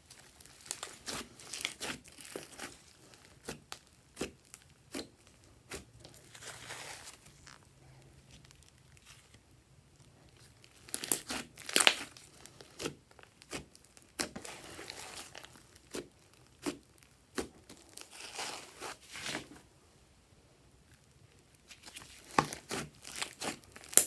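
Hands squeezing and stretching a large mass of slime. It gives off bursts of sticky crackling and popping clicks, with short quieter pauses between the bursts.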